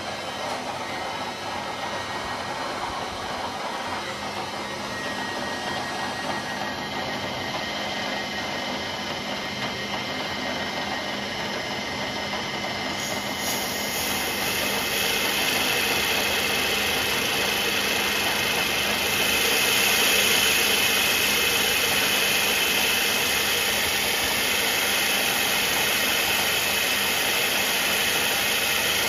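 CNC milling machine spindle running with an Accusize indexable carbide countersink cutting aluminium. It is a steady machine noise with a few steady tones, and about 13 seconds in it grows louder and hissier.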